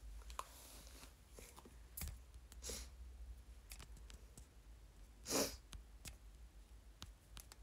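Scattered small clicks and rustles of handling close to the microphone, with a short noisy burst, the loudest sound, about five and a half seconds in.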